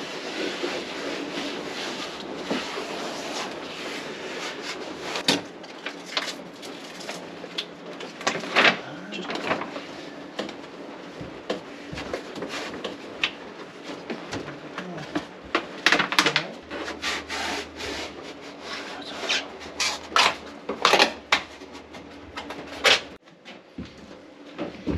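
Handling noises from fitting a self-adhesive foam floor mat: backing paper rustling and peeling, with scattered clicks and knocks as the mat is pressed and worked into place.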